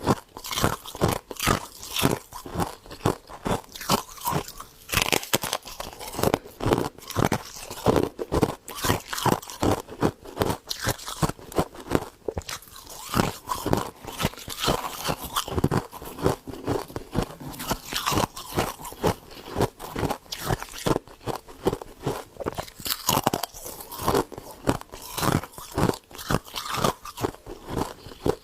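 Close-up chewing of crunchy frost ice, a rapid, continuous run of sharp crunches, several a second.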